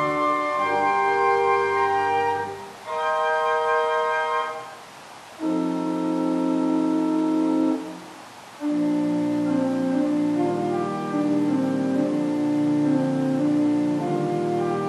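Organ playing a slow prelude in sustained chords that hold without fading. The phrases break off briefly three times, about 3, 5 and 8 seconds in.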